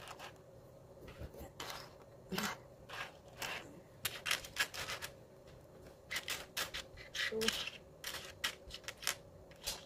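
Dirham coins clinking and scraping on a wooden desk as they are slid off a pile and counted by hand, in quick irregular clicks with short pauses.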